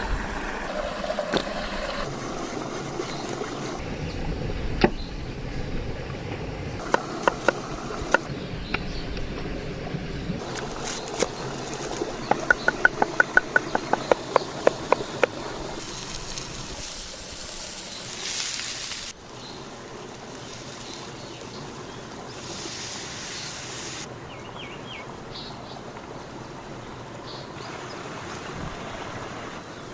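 Outdoor camp-cooking sounds over a steady background hiss: scattered clinks and knocks of utensils, then a quick even run of about a dozen taps in the middle, in short cut-together clips.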